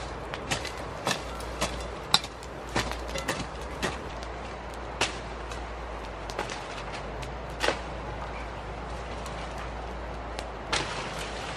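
Irregular sharp strikes of a hand tool chopping into grass and soil while weeding. The strikes come several a second at first and grow sparser after about four seconds.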